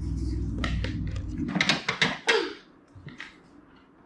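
Toy box and plastic track pieces being handled: a low rubbing rumble, then a few short clicks and knocks, after which it goes quiet about two and a half seconds in.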